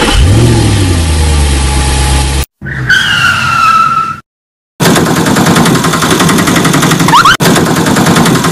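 Car sound effects cut together in short clips with abrupt gaps between them: an engine revving up and holding, a brief tyre screech, then a longer rattling engine-like noise with a few short chirps.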